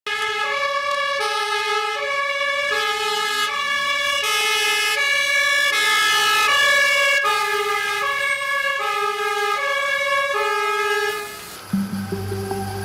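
Fire engine two-tone siren, switching back and forth between a high and a low note about every two-thirds of a second, its pitch sliding as the truck passes close. It cuts off about a second before the end.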